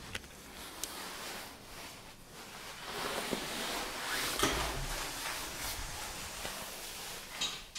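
A few soft clicks and knocks over a low steady hiss in a small room, with one about a second in, one in the middle and one near the end.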